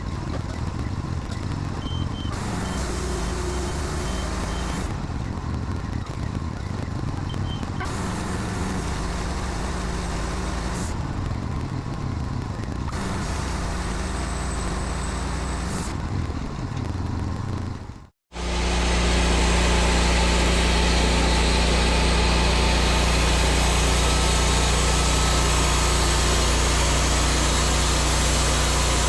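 Gasoline engine of a Woodmizer LT40 sawmill running. Its sound shifts back and forth every few seconds for the first part. After an abrupt cut about 18 seconds in, it runs louder and steady with a deep hum.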